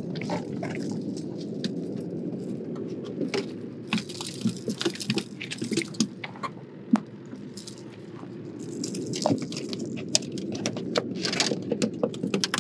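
A speckled trout being handled and unhooked on the deck of a small boat: scattered knocks, rattles and wet flapping and squishing sounds, in two busier clusters, over a steady low background rumble.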